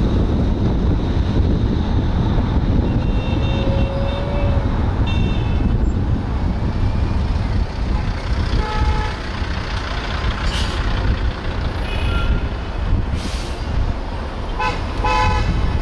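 Steady wind and road rumble from a car moving through city traffic. Several short horn toots from nearby vehicles cut through it, the clearest a pair about halfway through and a quick run of beeps near the end.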